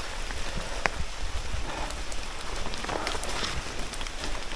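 Heavy rain falling steadily: a dense, even hiss with scattered sharp ticks of single drops.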